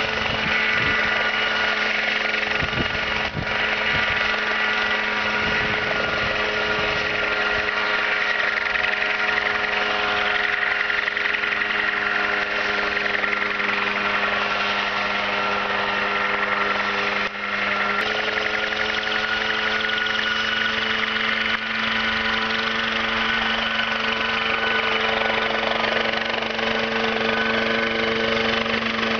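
Engine of a small homemade helicopter running steadily as it flies low, a constant drone with a slight shift in pitch a little past halfway.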